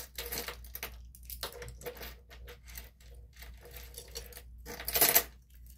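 Small metal bag charms and clasps clinking and rustling as they are handled, a run of light clicks with a louder rustle about five seconds in.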